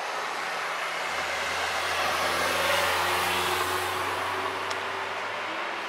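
A motor vehicle passing by: a low engine hum comes in about a second in, and a rushing noise swells to a peak around the middle and fades away.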